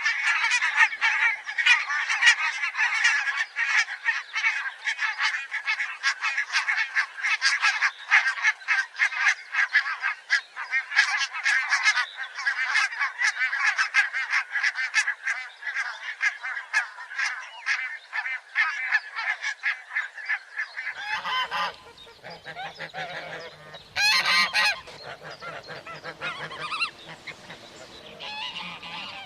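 A flock of geese honking, many calls overlapping in a dense, continuous chorus. About 21 seconds in it thins to fewer, quieter honks, with one loud burst of honking about three seconds later.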